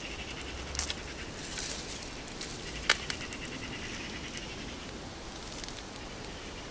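Leaves and stems rustling with a few twigs snapping, the sharpest snap about three seconds in, as someone pushes through dense undergrowth.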